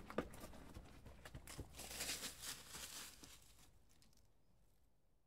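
Faint footsteps and rustling of grass on a dirt trail, with a few light clicks at first, fading out to near silence.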